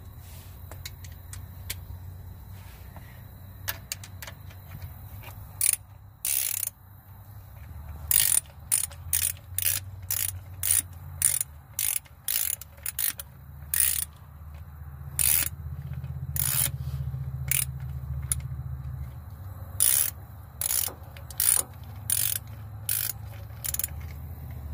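Hand ratchet clicking in short, repeated strokes, about two a second with a few pauses, as the connecting-rod cap nuts are run down from underneath the engine after the rod bearing has been fitted.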